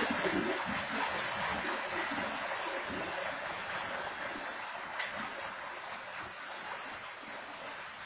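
Freight train of covered hopper cars rolling past, a steady rushing noise of steel wheels on rail that slowly fades, with one sharp click about five seconds in. Heard through a security camera's microphone.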